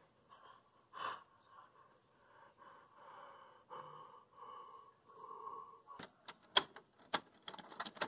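A person's faint, breathy gasps and exhalations, the strongest about a second in, followed near the end by a quick run of sharp clicks and taps.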